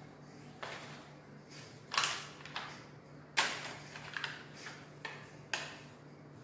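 Small plastic toy cars being handled and set down on a crinkly plastic bag on a table: a string of short clatters and rustles, loudest about two seconds and three and a half seconds in.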